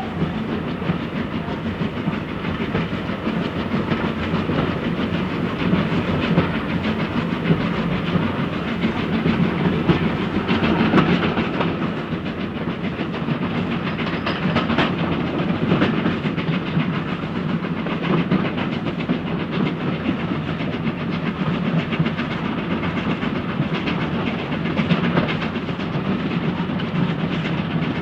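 Steam train running steadily, a continuous rumble and rattle of the train on the track.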